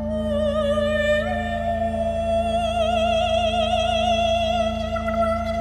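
A man sings a single high, wordless sustained note in an operatic falsetto. The pitch slides up about a second in and then wavers in a widening vibrato, over a steady low drone.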